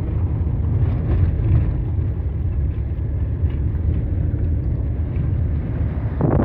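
Van engine and tyre noise heard inside the cab while driving along an unpaved dirt road: a steady low rumble with a rough road hiss over it. Near the end a brief louder rush of noise.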